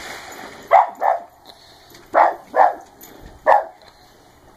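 Dog barking: five short barks, mostly in quick pairs.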